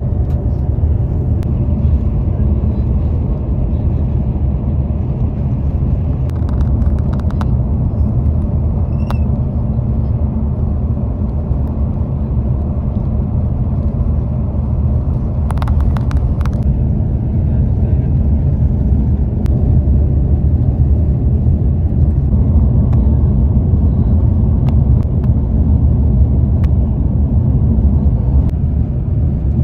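Steady low road rumble inside the cabin of a moving vehicle: engine and tyre noise while driving, with a few brief clicks about halfway through.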